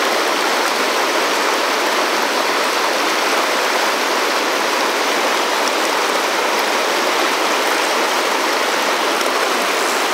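Fast, turbulent mountain river rushing and splashing over boulders in pocket water, a steady rush of white-water noise.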